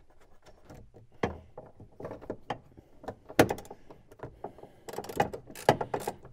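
Irregular metallic clicks and knocks of small brackets and bolts being handled and fitted by hand, the loudest about three and a half seconds in and a quicker cluster near the end.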